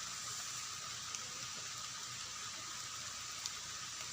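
Steady rain falling, an even hiss with a couple of faint ticks.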